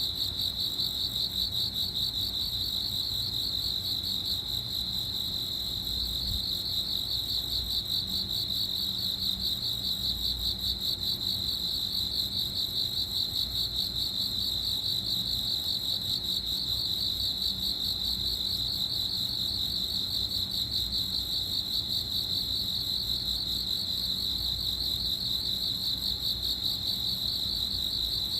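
Crickets chirping steadily, a continuous high-pitched trill pulsing rapidly without a break.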